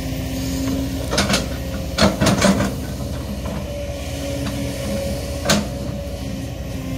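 Kobelco SK200-10 hydraulic excavator's diesel engine running steadily, with sharp knocks and clanks as the boom moves: two about a second in, a quick cluster around two seconds in, and one more past five seconds.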